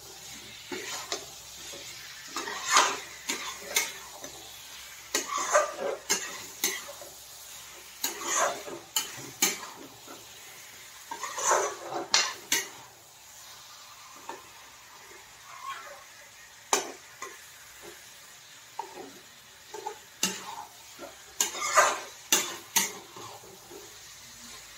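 A steel ladle stirring and scraping chicken curry around a metal kadai, in irregular clusters of strokes with a few sharp clinks of metal on metal. Under it the thick masala gravy sizzles faintly as it fries.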